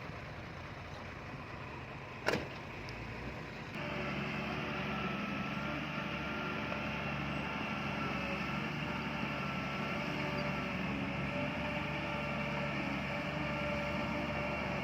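Diesel engine of heavy earth-moving machinery running steadily, with a sharp knock about two seconds in; at about four seconds the engine sound abruptly gets louder and fuller.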